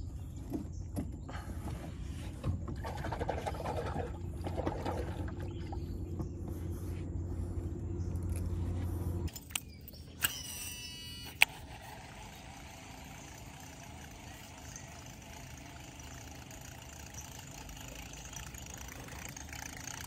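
A steady low rumble stops suddenly about nine seconds in. A baitcasting reel's spool then whirs for about a second and a half as a buzzbait is cast, ending in a sharp click, followed by a quiet steady hiss.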